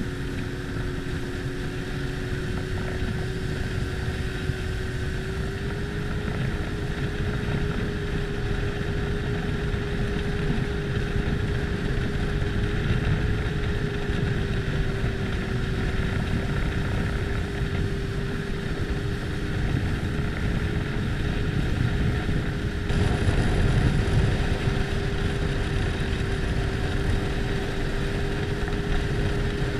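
A Sea-Doo personal watercraft's engine runs steadily at speed under a dense rumble, with wind noise on the microphone. The engine note steps up slightly about six seconds in.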